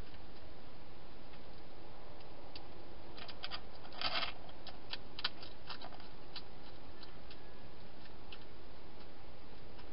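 Wild hedgehog chewing dry food inside a plastic-box feeding station: scattered small crunches and clicks over a steady hiss, busiest around the middle with the loudest crunch about four seconds in.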